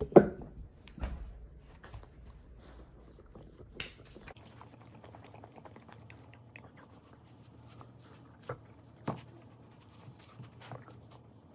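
A duck toller nosing and licking at a Planet Dog Snoop rubber treat toy on carpet, giving scattered soft knocks and clicks. The loudest is a sharp knock at the very start, as a hand presses the toy down.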